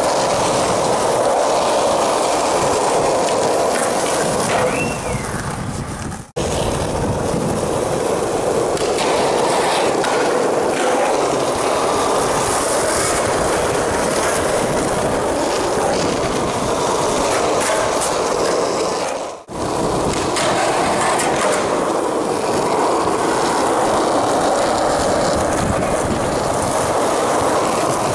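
Skateboard wheels rolling on a smooth concrete court, a steady rolling noise that drops out briefly twice.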